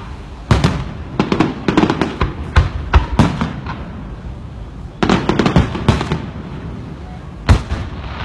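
Fireworks display: aerial shells bursting in clusters of sharp bangs and crackling pops, with low rumbles between them. The groups come about a second in, again at two to three seconds, around five to six seconds, and a single bang near the end.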